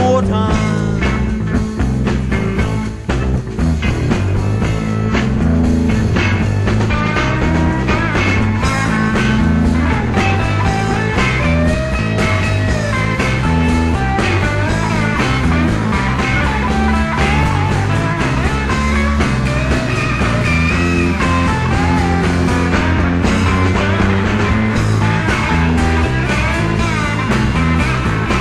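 A live psychedelic rock band playing an instrumental passage: an electric lead guitar plays a wandering solo line over bass and drums.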